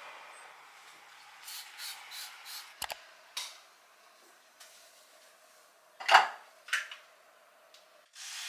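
Everyday handling noises: a few soft bare footsteps and a sharp click, then a louder clatter of small objects picked up from a bathroom counter, an electric toothbrush and a toothpaste tube. A steady rush of running water starts just before the end.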